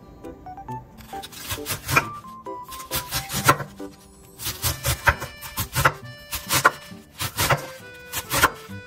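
Kitchen knife shredding cabbage on a wooden cutting board: repeated sharp chops in irregular runs, starting about a second and a half in, over soft background music.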